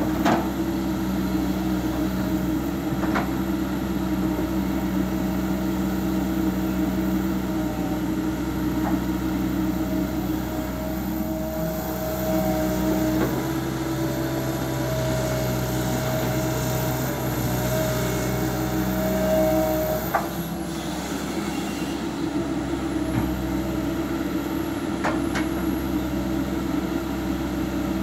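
Komatsu PC200LC hydraulic excavator working under load, its diesel engine running steadily. A higher whine comes in through the middle while the loaded bucket is lifted and swung. A few sharp clanks are heard.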